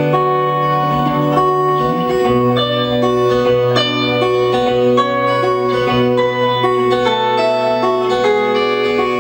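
Portuguese guitar picked fingerstyle: a melody of single ringing notes over a held bass note that steps down about two seconds in.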